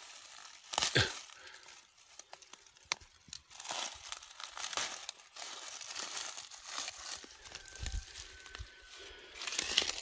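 Dry leaves and undergrowth rustling and crackling as someone moves through the plants, with a louder rustle about a second in and a few sharp clicks.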